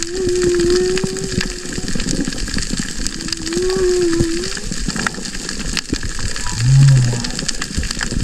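Humpback whale song heard underwater: two long, even mid-pitched moans, the second rising slightly as it begins, then a short, deeper call about seven seconds in that is the loudest, all over a steady crackling background.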